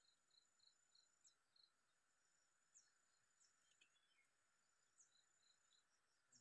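Near silence: faint pond-side ambience with a steady high insect whine and a run of short chirps, about three a second, near the start and again about five seconds in.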